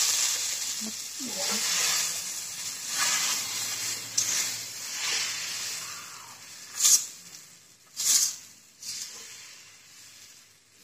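Palm-fruit and rice-flour batter sizzling in a little oil on a hot tawa, the hiss slowly dying down, with two short louder hisses about seven and eight seconds in.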